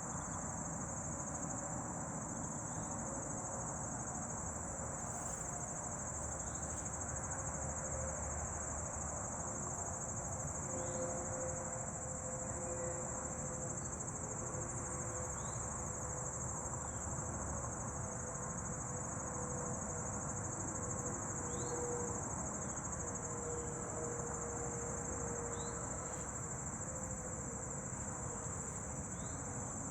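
Steady high-pitched trill of crickets singing in chorus, over an even low hum, with short falling bird chirps here and there.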